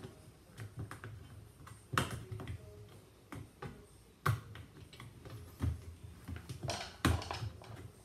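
Irregular small clicks, taps and rubbing of hands pressing a washing machine's rubber door seal onto the rim of the front panel opening, with sharper snaps about two, four, five and a half and seven seconds in, the last the loudest.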